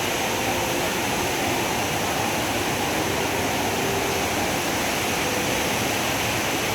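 The Rain Vortex, Jewel Changi's indoor waterfall, giving a steady rush of falling water.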